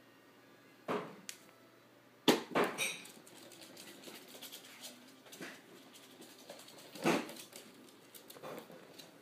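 A small puppy scampering and playing on a wooden floor: light pattering and ticking of paws, with a few sudden loud thumps.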